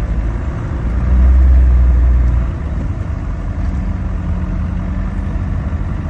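Off-road vehicle's engine running with a steady low rumble as it drives through snow, swelling louder for about a second and a half near the start before settling back.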